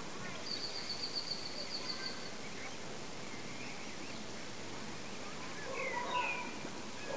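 Mute swan cygnets giving a few short peeping calls about six seconds in, over a steady outdoor hiss. A high, fast trill from another small creature runs for about two seconds, starting half a second in.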